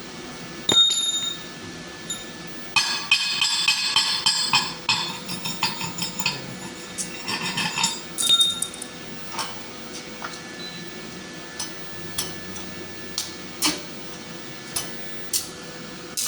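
Metal clinking and tapping. There is one ringing knock about a second in, then a rapid flurry of clinks for about five seconds, then scattered single sharp ticks.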